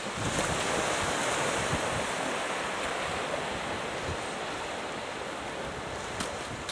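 Small waves washing up on a sandy beach in a steady wash, with wind buffeting the microphone.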